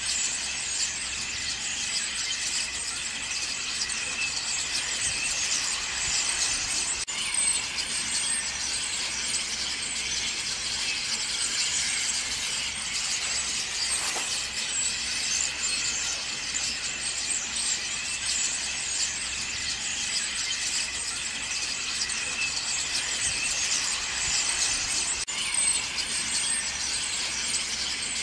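A large flock of common starlings chattering continuously, a dense, steady, high-pitched mass of many overlapping calls.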